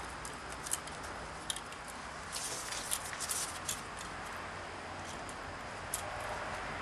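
Light, scattered metal clicks and scrapes as a snap ring is worked into its groove over the compressed low-reverse piston return spring inside an F4A42 transaxle case. The clicks bunch together about two to four seconds in.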